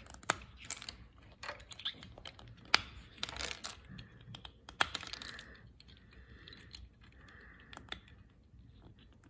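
Plastic Rubik's cube pieces clicking and clattering as they are pried out of the cube and set down, a scatter of sharp irregular taps with a few short scrapes.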